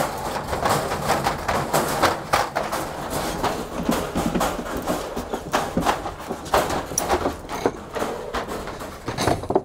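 Quick knocks, clicks and rattles of a wire dog crate being opened and handled, with a young Dutch Shepherd's claws and paws clattering on a wooden floor.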